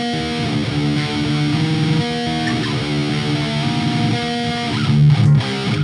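First Act ME 506 electric guitar, tuned to D standard and played through an amp: a riff of sustained chords and single notes.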